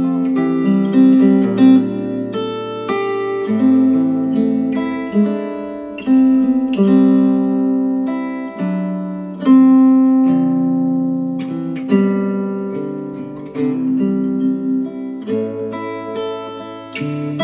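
Guitar music of plucked and strummed chords, each ringing out and fading, played back through Wharfedale Diamond 12.2 bookshelf speakers.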